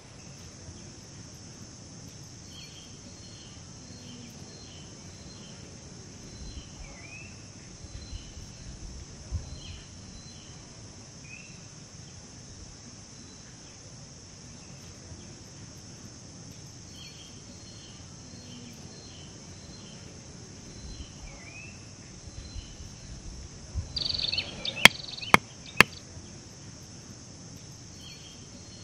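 Steady high-pitched drone of insects, with groups of short chirping calls coming and going. Faint handling noises sit underneath. Near the end there is a brief rustle and then three quick sharp clicks, the loudest sounds.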